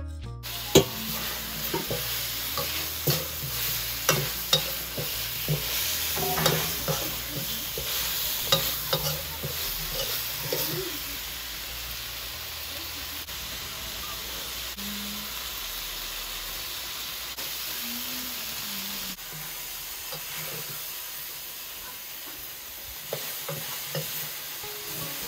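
Beef stew with onions and tomatoes sizzling and frying in a black wok-style metal pan over an open fire, with a spoon stirring and clacking against the pan through the first half. After that the frying goes on as a steady sizzle, with a few more knocks near the end.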